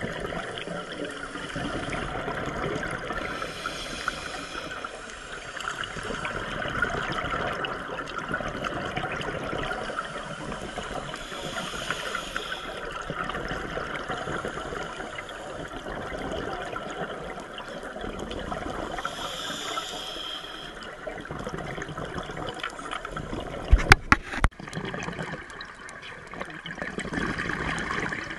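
Underwater recording of scuba exhaust bubbles from a diver's regulator, rushing about every eight seconds over a steady crackle. A few sharp knocks come near the end.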